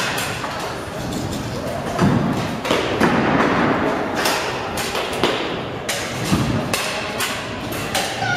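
Scooter and skateboard wheels rolling across a skatepark mini ramp, with repeated thumps and clacks as decks and wheels hit the ramp. Rumbling runs come about two seconds in, around three seconds in and again past six seconds.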